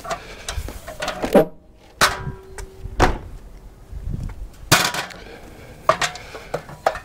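A ladder being shifted and set against a caravan: a series of irregular knocks and clatters, the loudest about two, three and nearly five seconds in. One knock leaves a short ring.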